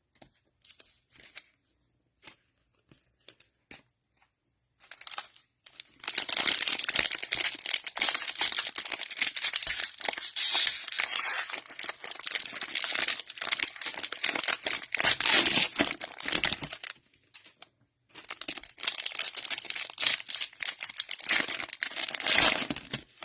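Cellophane wrapper of a Mosaic football cello pack being torn open and crinkled: two long stretches of dense crackling with a short pause between, after a few seconds of light scattered rustles and clicks.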